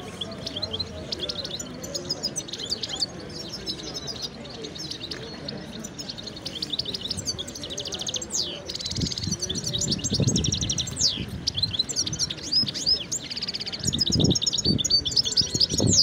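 Many caged songbirds chirping and singing at once: quick high chirps and trills overlapping, growing busier about halfway through.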